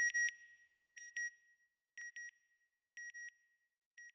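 Electronic satellite-signal beeps, a sound effect for the NASA Goddard closing logo: short high double beeps about once a second, each pair quieter than the one before.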